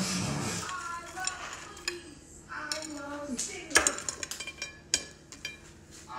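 Cutlery clinking and scraping against dishes: a series of sharp clinks and taps, the loudest about four seconds in.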